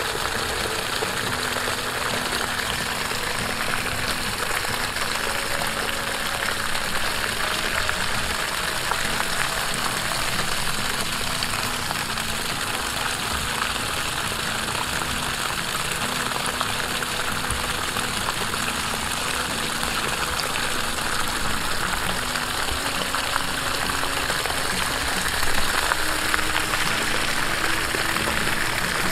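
Steady rush of water pouring out of an open PVC pipe outlet and splashing onto grass.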